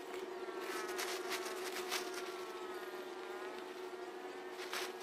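A steady buzzing hum, with rustling of tent fabric being spread out on the grass, in bursts between about half a second and two seconds in and once more near the end.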